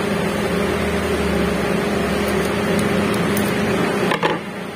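Steady background machine hum with a low drone, and a short knock about four seconds in.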